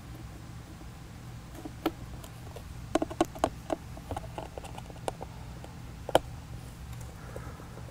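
Small irregular clicks and taps of a screwdriver and fingers working the screws out of the back plate of a Panasonic CF-19 Toughbook, with a quick cluster of clicks a few seconds in and the sharpest tap about six seconds in, over a low steady hum.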